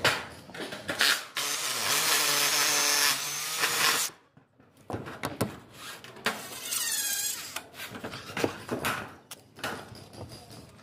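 DeWalt brushless cordless drill-driver driving a screw through galvanized steel roof flashing. The motor gives two short blips, then runs steadily for about two and a half seconds and stops abruptly. Scattered knocks and clicks of tool handling on the sheet metal follow.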